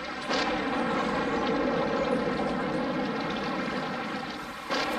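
Engine running at a steady drone, a single even pitch with many overtones, cutting in suddenly just after the start and restarting sharply near the end.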